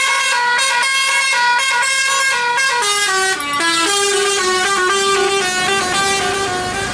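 Telolet horn on a tour bus playing a tune: a set of musical air horns sounding a melody of stepped, held notes, often several at once, with a short break about three and a half seconds in.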